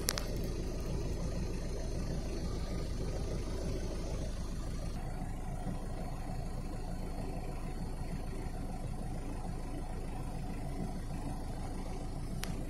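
Wind buffeting the phone's microphone outdoors, a steady low rumble, with a sharp click right at the start and another near the end.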